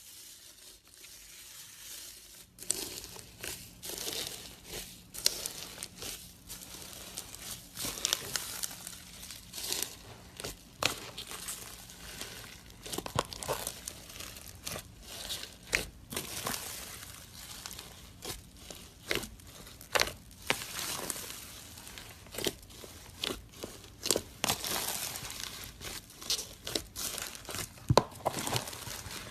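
Slime being squeezed and poked by hand, making dense, irregular sticky clicks and crackling pops that grow louder a couple of seconds in.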